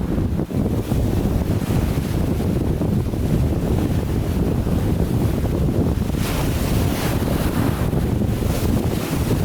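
Strong wind buffeting the microphone over lake waves breaking and washing ashore like surf, with a couple of brighter surges of wash a little over halfway through.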